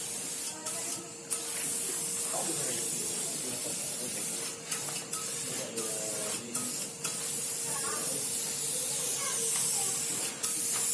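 Steady hissing noise with a faint, steady hum underneath, and faint voices in the background.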